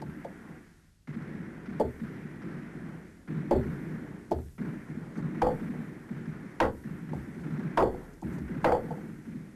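Sledgehammers driving tent stakes into the ground: about seven sharp, ringing strikes at uneven intervals, over a low steady background.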